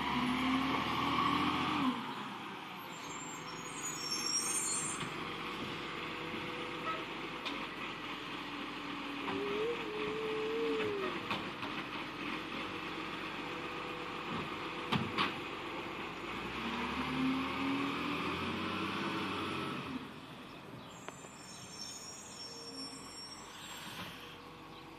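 Garbage truck working: its engine runs steadily, rising and falling in pitch near the start and again later, with a few sharp knocks near the middle. The sound drops off about 20 seconds in.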